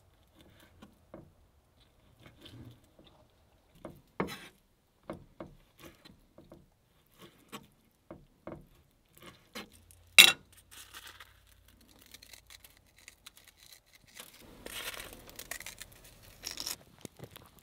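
Chef's knife cutting raw meat into cubes on a wooden cutting board: irregular light taps of the blade striking the board, with one sharp clack about ten seconds in. Near the end the cutting stops and there is a softer rustling while a jar of seasoning is handled.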